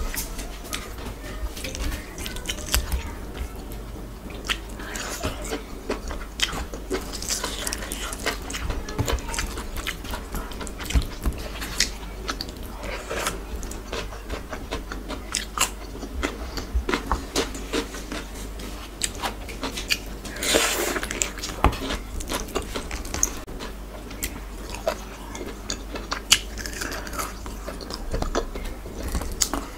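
Close-miked mukbang eating sounds: wet chewing and mouth clicks as soft khichuri and chicken curry are eaten by hand, with many small sharp clicks and one louder, longer burst about two-thirds of the way through.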